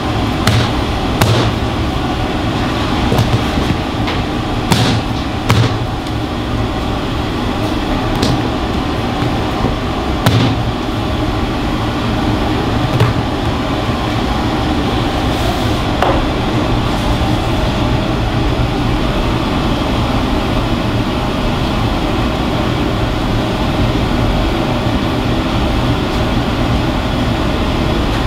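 Hand-pulled noodle dough slapped down on a floured wooden board, several sharp slaps in the first ten seconds or so, over the steady whir of kitchen ventilation.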